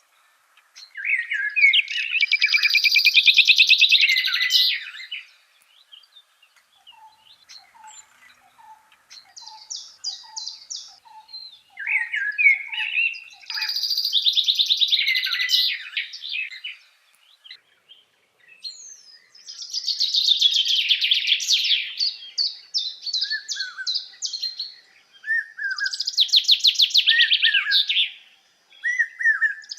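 Songbirds singing: long, rapid phrases of trills and warbles come four times, several seconds apart. A second, lower series of about ten short down-slurred whistled notes comes between the first two phrases.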